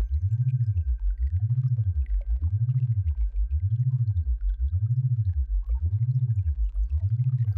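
Synthesized low tone for tinnitus sound therapy, gliding up and down in pitch in an even cycle about once a second, with a faint steady high tone and scattered faint ticks above it.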